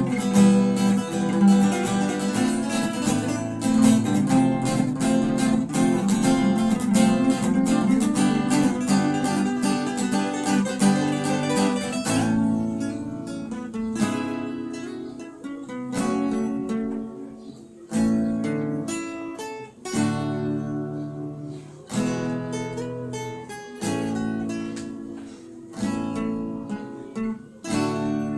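Acoustic guitar playing an instrumental: a busy strummed and picked passage, then about halfway through it drops to softer, sparser chords struck roughly every two seconds and left to ring.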